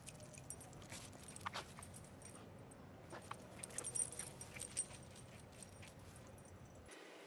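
Small dog's leash and harness fittings clinking faintly as it darts about, in scattered clicks with a denser cluster about four seconds in.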